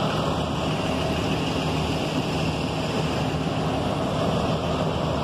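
Hybrid transit buses running close by, a steady low engine hum under a broad rushing noise.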